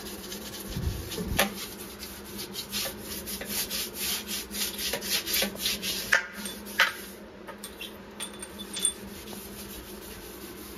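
Green scouring pad scrubbing greasy kitchen counter tiles: quick back-and-forth scratchy strokes, several a second, which grow fainter in the last few seconds.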